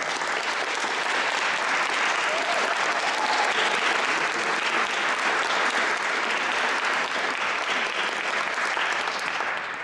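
Audience applauding steadily, dying away at the very end.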